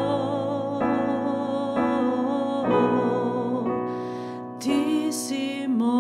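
A woman singing held notes with vibrato over chords played on a digital piano, a new chord about once a second. About four seconds in she breathes between phrases, then starts the next line.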